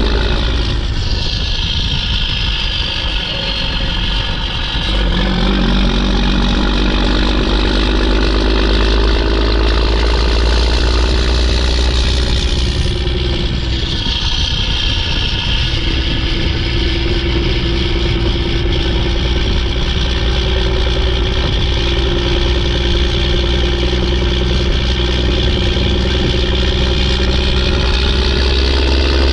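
Mack E7 inline-six turbo diesel in a loaded Mack CH612 dump truck running under load, with a loud turbo whistle over the engine note. The whistle drops in pitch about a second in and again around 13 seconds in, and the engine note changes pitch a few times.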